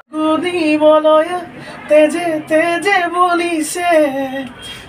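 A man singing an Assamese song unaccompanied, in long held phrases with a wavering pitch and short breaths between them.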